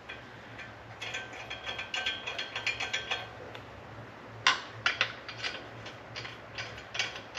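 Hand ratchet clicking in quick runs, then in slower separate strokes, as the wheel's lug nuts are run on and tightened. A steady low hum runs underneath.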